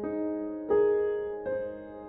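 Slow background piano music, a new note or chord struck about every three quarters of a second and left to fade.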